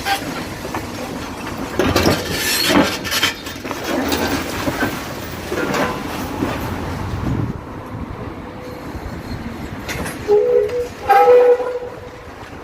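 A train running past with clattering from its wheels, then two short blasts on its two-tone horn near the end.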